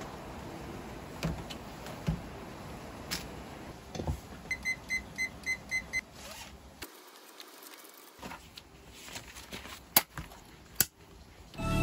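Electronic digital timer beeping six quick, evenly spaced times, with a few soft clicks and knocks of objects handled on a desk.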